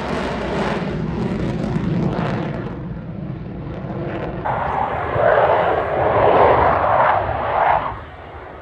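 The twin turbofan engines of a Boeing F/A-18 Hornet fighter jet running hard in a display manoeuvre, a continuous jet roar. It swells loudest a little past halfway, then falls away suddenly near the end.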